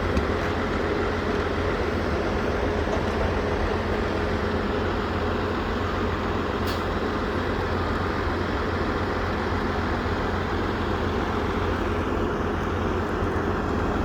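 Steady motor-vehicle running and rumble noise that stays even throughout, with a single short click about halfway through.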